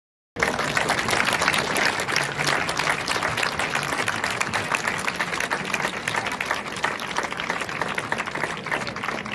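Audience applauding with many hands clapping. It starts abruptly about half a second in and eases off slightly toward the end.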